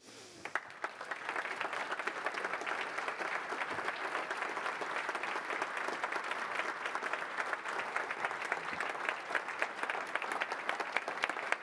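Large audience applauding: many hands clapping, swelling over the first second into dense, steady applause that carries on unbroken.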